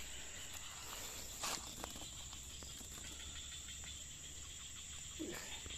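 Steady high-pitched chirring of insects, with faint rustles and light clicks as loose oil palm fruits are handled and put into a woven bamboo fish trap.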